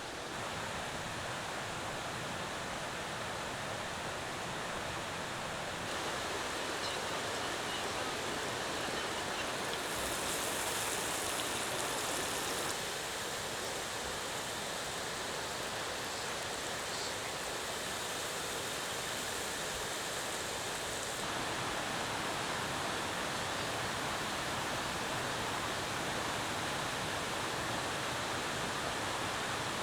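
Mountain stream rushing over rocks in a steady wash of water noise, its tone shifting slightly a few times.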